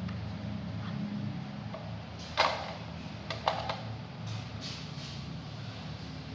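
A few short, sharp knocks over a low steady hum: one loud knock about two and a half seconds in, then three quicker ones a second later.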